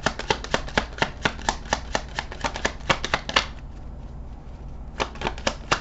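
A deck of tarot cards being shuffled by hand: a quick run of card clicks and flutters. The shuffling breaks off for about a second and a half near the end, then starts again.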